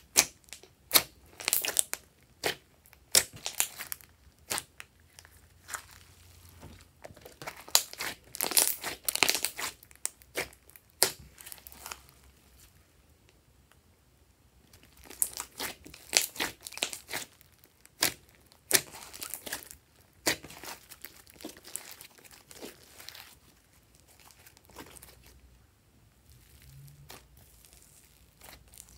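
Hands squeezing, pressing and stretching glossy slime, making irregular clusters of sticky pops and crackles, with quieter pauses about twelve seconds in and again near the end.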